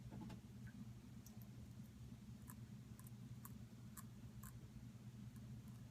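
Faint, scattered short scratches of a double-edge safety razor, a Merkur Futur, cutting stubble, about a dozen in all, over a low steady hum.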